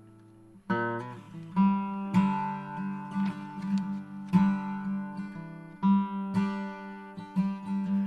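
Acoustic guitar strummed in chords: a chord rings out and fades, then rhythmic strumming starts again just under a second in.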